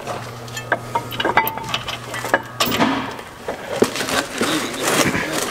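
Irregular metal clinks and knocks as a Brembo brake caliper is fitted to the hub and its mounting bolts are started. A low steady hum runs under it and stops about three seconds in.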